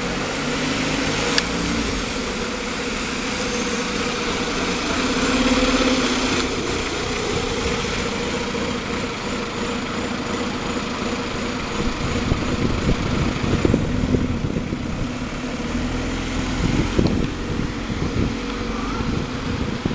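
Alexander Dennis Enviro200 single-deck bus's diesel engine running steadily, swelling a little about five seconds in. From about twelve seconds in, sharp rattles and knocks come in.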